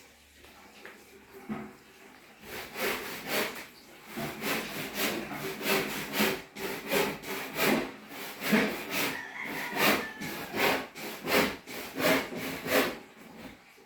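Hand saw cutting through wood in a steady rhythm of back-and-forth strokes. It starts a couple of seconds in and stops near the end.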